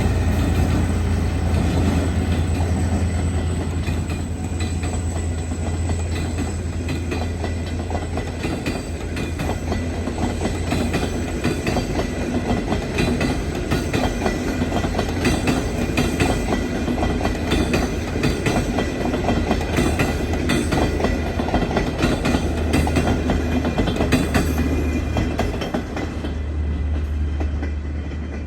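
Passenger train running on the track, its wheels clattering over the rail joints over a steady low rumble, easing off slightly near the end.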